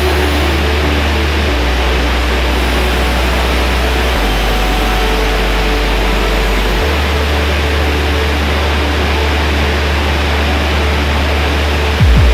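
Steady roar of falling water from a large waterfall, with the deep bass notes of background electronic music changing pitch every couple of seconds underneath.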